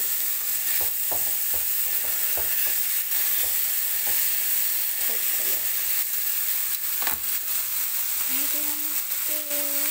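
Meat sizzling in oil in a non-stick frying pan, a steady hiss, with tongs knocking and scraping against the pan as the pieces are moved: several knocks in the first half and another about seven seconds in.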